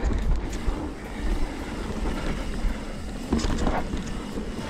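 Wind buffeting the camera microphone over the rattle and crunch of a mountain bike being ridden down a dirt trail, with a brief louder rush about three and a half seconds in.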